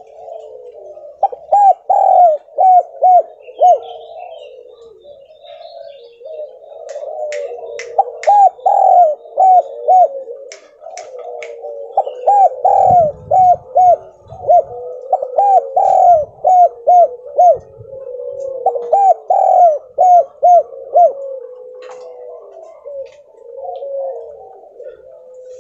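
Spotted dove cooing: repeated phrases of three to six short, quick, arched coos, with softer ongoing dove cooing underneath. A few sharp clicks come in the middle.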